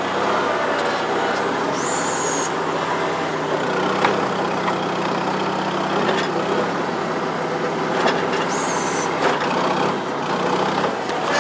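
New Holland L425 skid steer running steadily, its four-cylinder Wisconsin engine working, with a few sharp knocks and two brief high-pitched whines, about two seconds in and again near eight and a half seconds.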